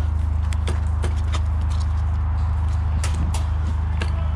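Scattered sharp snaps of an airsoft firefight, about two or three a second at irregular spacing, from incoming BBs striking around the player and airsoft guns firing. A steady low hum runs underneath.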